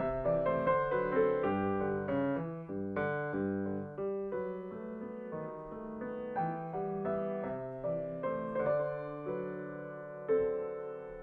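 A grand piano played solo in a classical piece, chords and melody notes at a moderate pace, each ringing and fading, with a noticeably stronger chord struck near the end.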